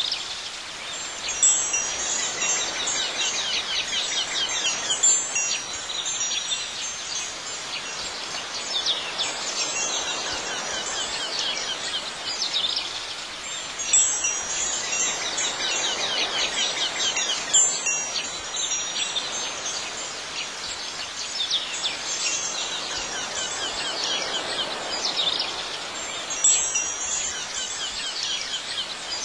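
Wind chimes ringing in a garden ambience that repeats itself about every twelve and a half seconds, as a loop does.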